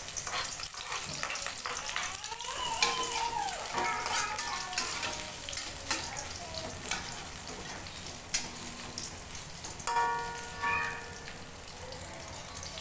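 Sliced onions sizzling in hot oil in a wok, with the metal spatula scraping and knocking against the pan as they are stirred.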